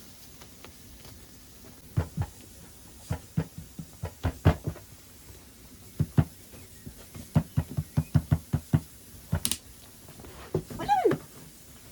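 A string of irregular sharp knocks and taps, some close together, followed about eleven seconds in by a short animal call that falls in pitch.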